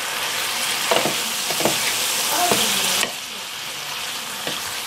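Vegetables and tomato paste sizzling on high heat in a frying pan, stirred with a wooden spatula that scrapes and knocks against the pan a few times; the sizzle drops off sharply about three seconds in.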